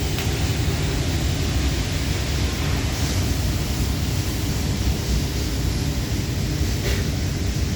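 TIG arc welding on a boiler tube with Inconel filler wire: a steady hiss over a heavy low rumble, with a faint click near the end.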